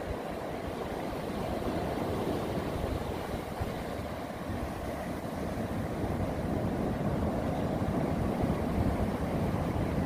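Ocean surf washing onto a sandy beach: a steady rushing wash that swells slowly and grows a little louder in the second half, with some wind on the microphone.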